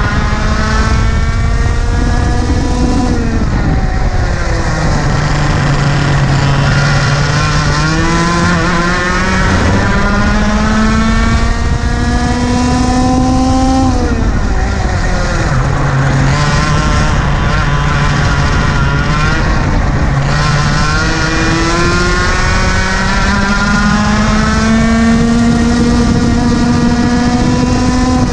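IAME KA100 100cc two-stroke kart engine at racing speed, heard onboard: its pitch climbs steadily along each straight and drops sharply as the driver lifts for corners, four times, over steady wind rush.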